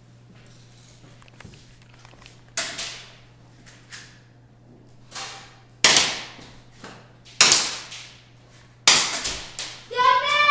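Airsoft gunfire and BB hits in the plywood arena: four loud sharp cracks and a fainter one, a second or two apart, each ringing off briefly in the room. Just before the end a player's voice shouts.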